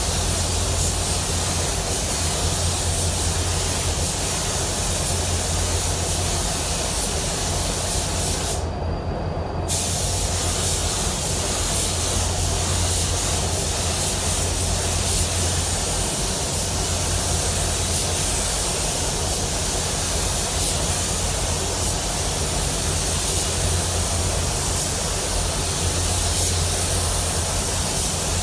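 Automotive paint spray gun hissing steadily as it lays solid black solvent basecoat, cutting out for about a second roughly nine seconds in, over a steady low hum.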